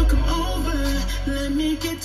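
Music played through the car's upgraded aftermarket stereo, with a deep, steady bass and a wavering melody line; the sound dips briefly at the very end.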